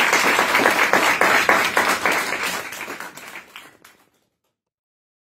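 Audience applauding, dense, steady clapping that fades and cuts off about four seconds in.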